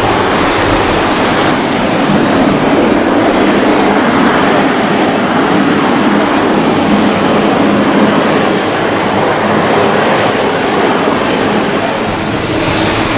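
Boeing 777-300's Rolls-Royce Trent jet engines running as the airliner rolls along the runway: a loud, steady jet noise that eases slightly near the end.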